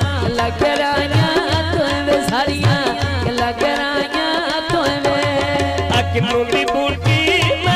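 Live amplified song: a woman singing into a microphone over harmonium and a hand drum, with a man's voice taking over the singing near the end.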